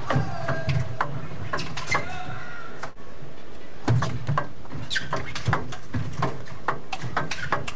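Table tennis rally: the ball clicks sharply and irregularly off the bats and the table over a steady background hum. The sound cuts out for an instant about three seconds in.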